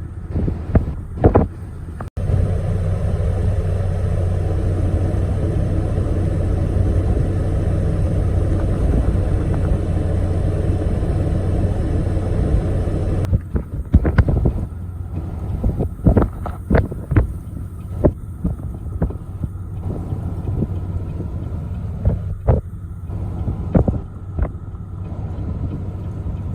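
Blizzard wind of about 50 mph buffeting the microphone in gusts, over a steady low rumble like an idling vehicle. About two seconds in, a cut brings a denser, steadier rush of wind for about eleven seconds, then the sharp gusty buffeting returns.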